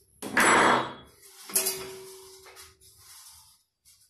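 Clatter and knocks of a wooden coil former being handled at a metal coil-winding machine; a sharp knock about a second and a half in leaves a short metallic ring.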